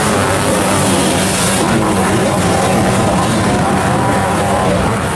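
Several sidecar motocross outfits racing together, their engines revving hard and overlapping, the pitch rising and falling as the riders work the throttle over the jumps.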